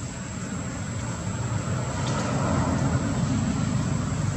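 Steady low rumble of distant engine noise that swells a little toward the middle, with a thin steady high tone above it.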